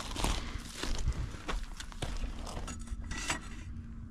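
Footsteps crunching on loose gravel: several uneven steps that stop shortly before the end.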